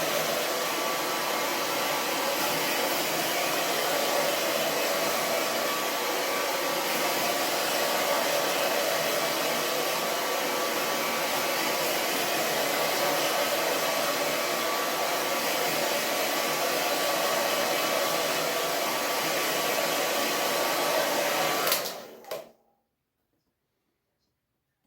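Handheld hair dryer blowing steadily, then switched off with a click near the end, its sound cutting out at once.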